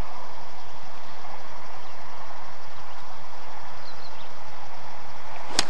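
Steady outdoor background noise, then near the end a single sharp crack of a golf club striking a ball off a driving-range mat.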